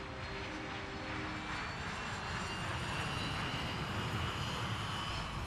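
Airliner engines: a rumble and hiss with a faint high whine, slowly growing louder. Background music fades out in the first second.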